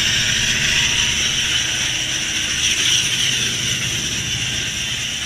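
Loaded coal train passing: the hopper cars' steel wheels rattle and click over the rails above a steady hiss. A diesel locomotive's low drone grows from about halfway through.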